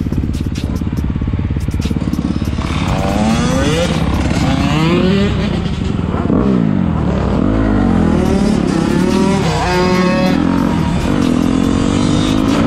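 Dirt bike engines revving and shifting through the gears, the pitch climbing and dropping repeatedly over a steady engine drone.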